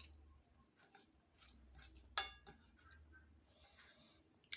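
Tableware handling: one sharp clink with a short ring about two seconds in, with faint clicks and a brief scraping sound near the end, as gravy is served from a bowl.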